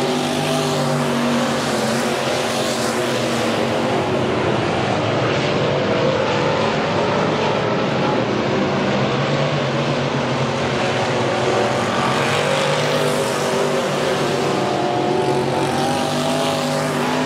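Several dirt-track race cars' engines running together around the oval, with cars passing close by now and then.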